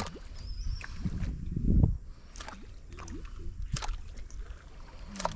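Water lapping and sloshing against the hull of a small fishing boat, with a louder low rush about a second and a half in and a few sharp knocks on the boat.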